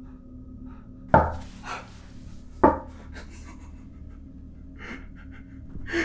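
Two loud, sharp thumps about a second and a half apart, with heavy, tense breathing between them, over a low steady hum.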